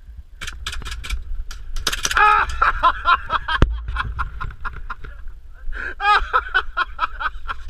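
Airsoft gunfire: irregular runs of sharp clicks and cracks, with one loud sharp crack about three and a half seconds in. A man yells and laughs in short bursts over the shots.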